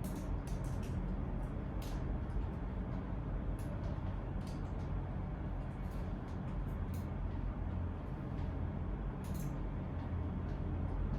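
Room ambience of people working quietly: a steady low hum with scattered sharp clicks, like keys and a mouse being tapped.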